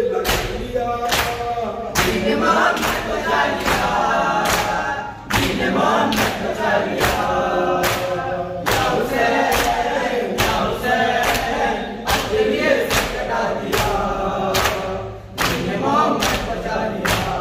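A group of men chanting a nauha lament in unison while beating their chests with their open hands (matam). The hand slaps on the chest keep a steady, even beat under the voices.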